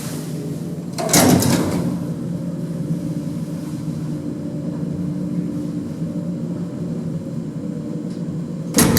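Lift machinery running with a steady hum made of several tones, with a loud, short noise about a second in and again near the end.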